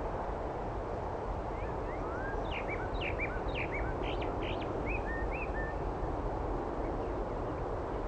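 A songbird twittering: a quick run of short, high, slurred chirps that starts about a second and a half in and stops around six seconds, over a steady low background noise.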